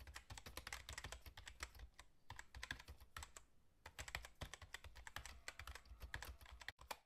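Faint computer-keyboard typing: a rapid run of key clicks with a couple of short pauses, stopping abruptly near the end.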